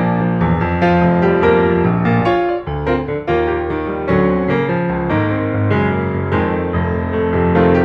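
Background music led by piano, a flowing run of notes with a steady sustained bass.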